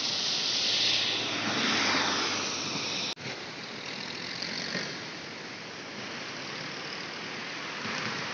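Steady rushing noise of road traffic passing over a swollen, fast-flowing river in flood. It is louder for the first three seconds, cuts out for an instant, then runs on more evenly.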